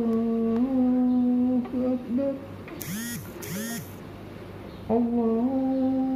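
A man chanting the adhan, the Islamic call to prayer, in a low voice: two long drawn-out phrases with a pause between. In the pause, about three seconds in, come two short high-pitched squeals.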